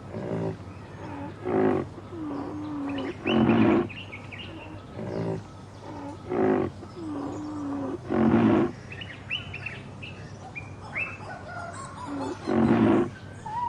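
A large animal calling over and over with deep, loud calls about every one and a half to two seconds, with softer gliding calls between them. Small birds chirp in the background in the second half.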